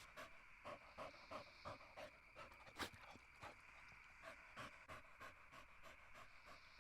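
Faint animal panting, quick even breaths about three a second that fade out after about five seconds, with one sharp click near the middle.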